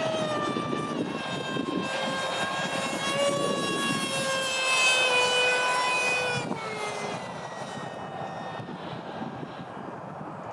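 Electric ducted fan (a WeMoTec Midi six-blade unit) of a radio-controlled Eurofighter model jet whining in flight, its pitch easing down slightly. About two-thirds of the way through, the whine drops in pitch and fades, leaving a quieter whine over a low rumble.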